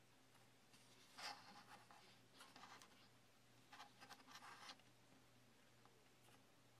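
Faint rubbing and scratching of fingertips pressing and smoothing stone-powder clay on a small figure, in two short spells, over a steady low hum.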